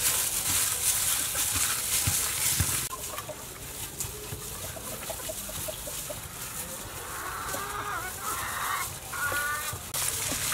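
Chickens clucking: a run of short clucks, then a few louder, higher calls near the end. At the start, the wet squelch and plastic rustle of a gloved hand kneading sliced pork in a steel bowl.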